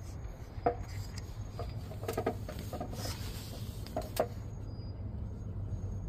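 Camera handling noise: a few light clicks and short squeaks over a low steady hum.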